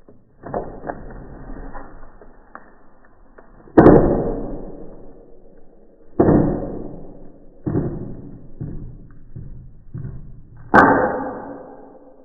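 Homemade wooden da Vinci-style catapult released from its wound-up tension: a series of hollow wooden knocks, each ringing briefly. The loudest comes about four seconds in, then the knocks come quicker and weaker, and another loud one comes near the end.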